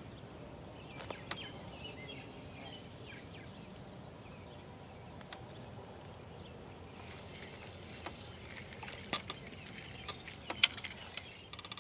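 Quiet lakeside ambience: a low steady rumble with faint bird calls, and a faint high hiss joining about seven seconds in. Near the end comes a run of sharp clicks and taps as the fishing rod and reel are handled.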